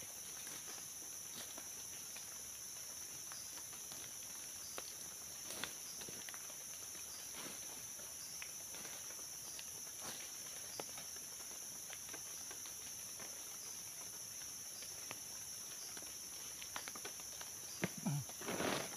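Steady high-pitched drone of tropical forest insects, over scattered crackles and snaps of dry leaf litter and twigs as someone works on the forest floor. A short louder bout of rustling comes near the end.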